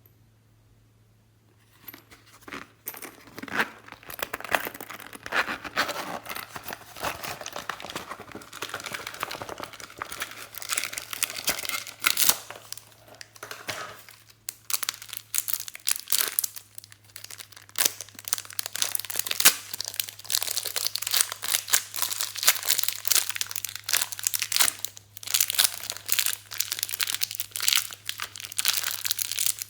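Glossy slime being worked by hand, making dense, irregular crackling and popping. It starts about two seconds in and keeps going.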